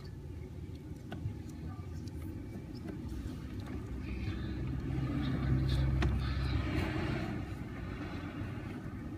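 A road vehicle passing by: a low rumble that builds, peaks about six seconds in, then fades away.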